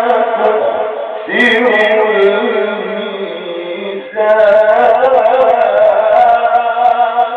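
Man reciting the Quran in a slow melodic chant, drawing out each phrase in long held notes. A new phrase begins about a second in and another about four seconds in.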